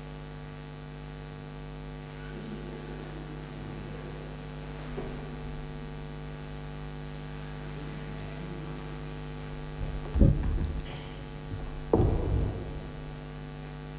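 Steady electrical mains hum, with two heavy low thumps about ten and twelve seconds in, the second trailing off in a short rumble.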